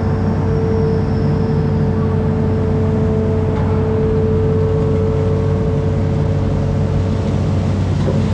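Amphibious excavator's diesel engine running steadily, a low hum with a steady whine held over it.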